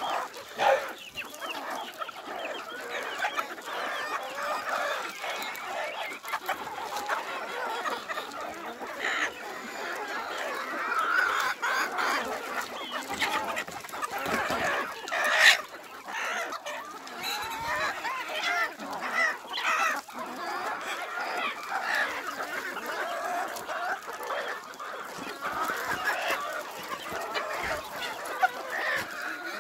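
A flock of hens and roosters clucking and chattering continuously as they peck at food, with a brief sharp sound about halfway through.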